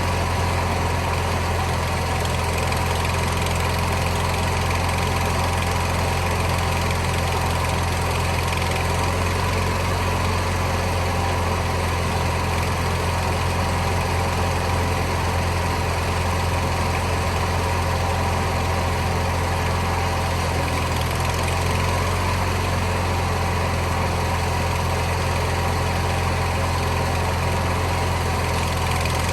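John Deere 400 garden tractor's air-cooled twin-cylinder engine running steadily at a constant speed.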